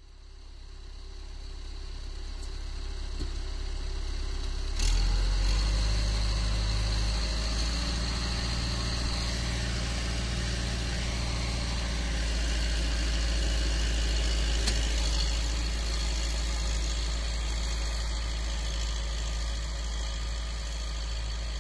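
Volvo BM 2250 tractor's diesel engine running. It gets sharply louder about five seconds in, then holds a steady drone as the tractor pulls the reversible plough through the soil.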